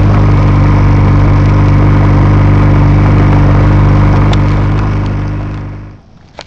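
Motorcycle engine running at a steady speed under way, fading away and cutting off near the end.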